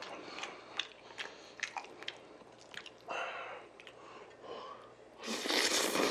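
Close-up mouth sounds of a person eating spicy buckwheat noodles: chewing with sharp wet clicks, then a louder, longer slurp near the end as a mouthful of noodles is drawn in.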